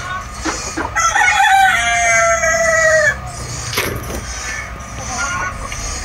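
An Aseel rooster crows once: a single long call of about two seconds, its pitch sagging slightly toward the end. A sharp knock follows, then a few short clucks.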